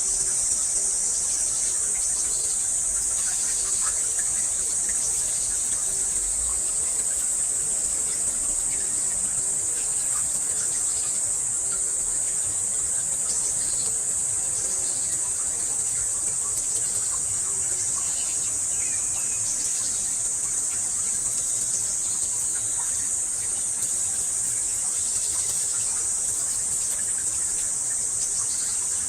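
Steady, high-pitched insect chorus that drones on without a break.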